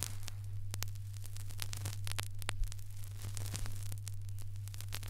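Surface noise of a played-back acetate disc: scattered clicks and crackle over a steady low hum.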